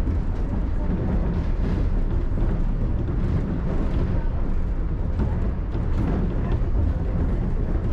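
Shonan Monorail suspended monorail car running between stations, heard from inside the cabin: a steady low rumble from the rubber-tyred train.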